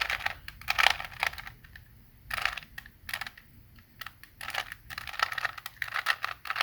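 Plastic Rubik's Cube faces being twisted by hand: rattly clicking and scraping in several quick runs of turns with short pauses between.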